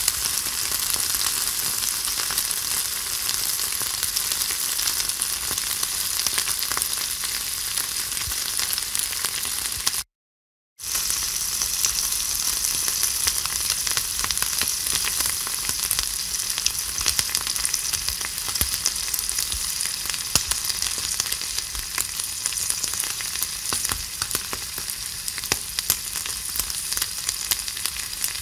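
Food sizzling in hot fat: a steady, dense hiss with many small crackling pops. The sound cuts out completely for under a second about ten seconds in, then resumes.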